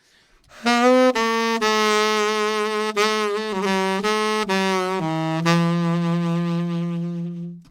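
Solo saxophone playing a slow phrase. It scoops up into the first note, steps down through several notes and ends on a long held low note.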